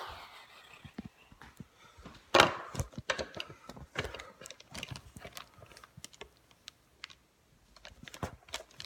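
Handling noise of a phone being moved about: a run of knocks, rubs and clatters, the loudest a sharp thump about two and a half seconds in.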